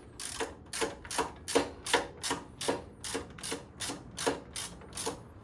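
Hand ratchet clicking steadily, about three clicks a second, as it tightens a bolt on a motorcycle's rear brake caliper.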